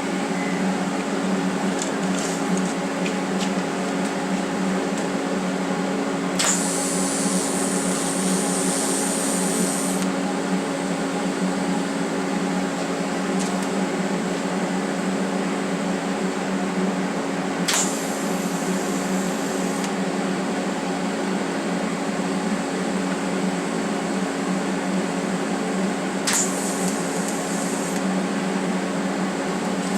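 A TIG welding machine hums steadily. Three times, a sharp click starts a few seconds of high hiss as the arc is struck for short tack welds.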